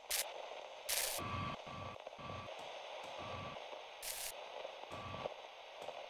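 Electronic intro sound effects: a steady static hiss cut by short bursts of noise, with five short beeps of one pitch, each with a low thump under it, between about one and five seconds in.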